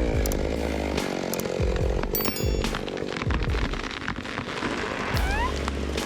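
Large chainsaw running and cutting through timber.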